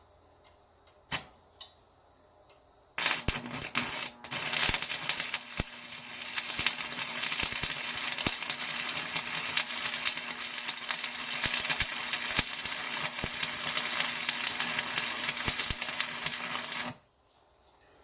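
Stick (arc) welding: the arc strikes about three seconds in, sputters briefly, then crackles steadily with a low hum underneath and cuts off suddenly near the end.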